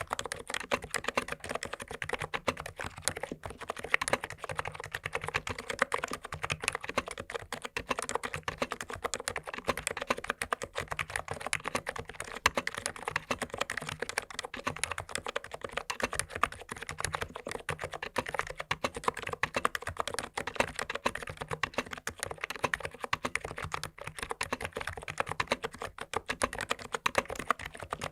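ABKO KN20C full-size keyboard with 45 g Noppoo electrostatic capacitive switches being typed on continuously: a dense, unbroken stream of key presses.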